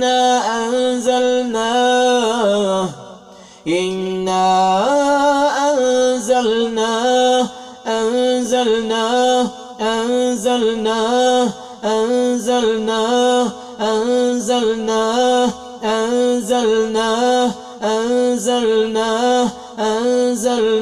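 A man's unaccompanied voice chanting Quranic recitation in long, melodic held notes. There is a brief break about three seconds in, then a steady run of notes pulsing about once a second.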